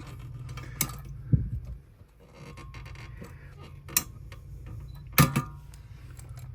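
Scattered sharp clicks and knocks of the metal top cover of a 1963 Olympia SM-7 portable typewriter being worked loose and lifted off. The loudest click comes about five seconds in, with a short metallic ring.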